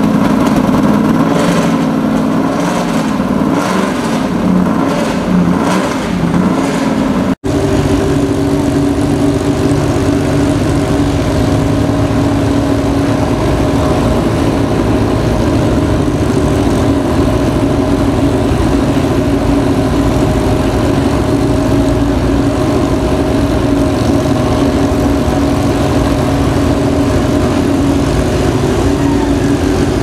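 A Shelby Cobra's V8 idling with an uneven, pulsing lope. About seven seconds in it cuts to another racing engine idling steadily at a higher, even pitch.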